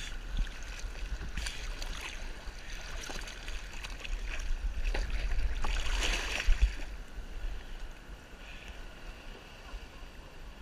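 Sea water sloshing and splashing around a camera held at the surface, with a low rumble of moving water. The splashing is loudest around the middle and dies down near the end.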